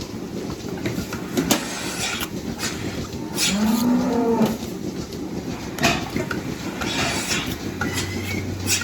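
A dairy cow moos once, a single call of about a second that rises and falls in pitch, over a steady low rumble with a few sharp knocks.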